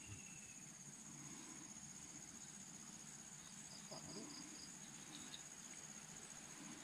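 Faint, steady high-pitched drone of insects, with a few short high pips about four seconds in.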